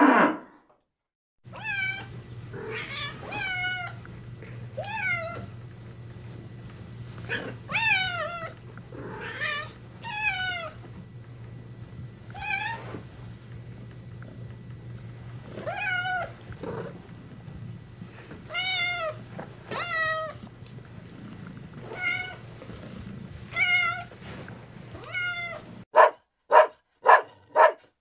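A domestic cat meowing over and over, with about twenty separate meows that rise and fall in pitch over a steady low hum. Near the end, a dog gives a quick run of short barks, louder than the meows.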